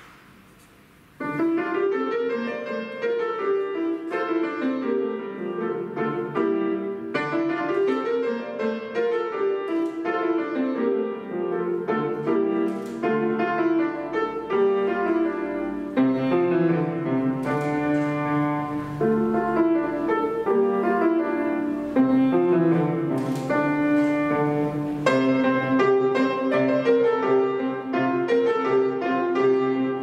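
Estonia grand piano played solo, a classical piece that begins about a second in after a brief quiet, with flowing runs of notes over lower bass notes.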